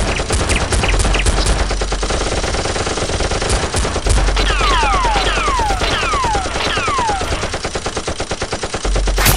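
Rapid automatic gunfire sound effects laid over a Nerf battle, firing continuously. In the middle come about five falling whistles, like bullets whizzing past or ricocheting.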